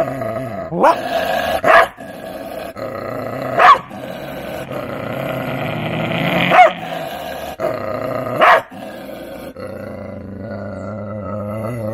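A spitz and native Indian dog cross growls steadily and breaks into about five sharp barks. It is the aggressive warning of a caged dog with a history of touch aggression and biting, directed at a person close to its cage.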